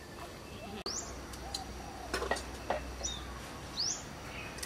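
Birds calling: several short, quickly rising whistled chirps, a dove's soft low coos in the first couple of seconds, and a few sharp clicks around the middle.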